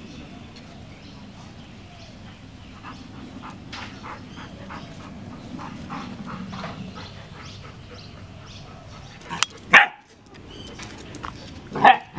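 Puppies play-fighting, a Siberian husky puppy with a yellow retriever: a run of short faint sounds, then two loud barks, one about nine and a half seconds in and one at the end.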